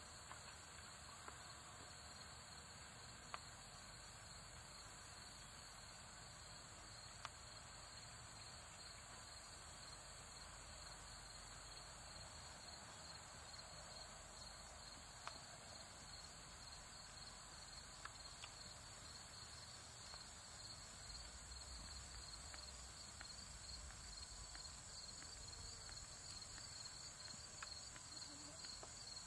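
Faint, steady chorus of insects trilling at high pitch, with a few scattered soft clicks.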